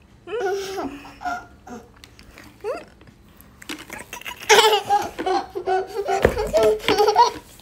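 Small girl laughing: a few short giggles at first, then a loud run of laughter from about halfway through.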